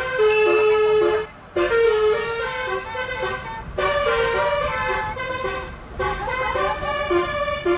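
Bus 'telolet' multi-tone air horn playing a melody: short notes step up and down over a few pitches, sounding together like a chord, with brief breaks about a second and a half in and again near four and six seconds.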